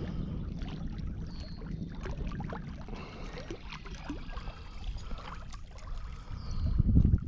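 Outdoor noise from a small fishing boat on the water: a steady low rumble of wind on the microphone and water around the hull, with scattered light clicks. A louder rush of low rumble comes near the end.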